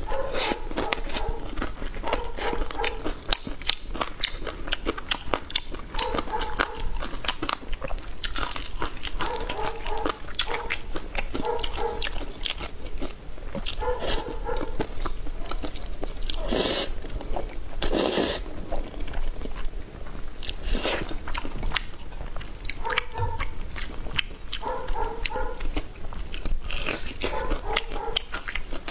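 Close-miked eating: steady chewing with many small crisp crunches, and a few loud crunching bites about halfway through.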